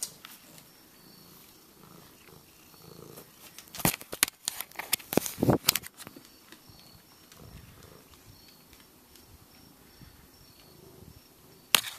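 Cat purring softly close to the microphone. A run of sharp knocks and rubbing on the camera body, the loudest sounds, comes about four to six seconds in, with another knock near the end.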